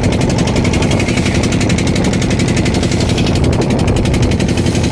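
Fishing boat's engine running steadily, with a rapid, even pulsing beat.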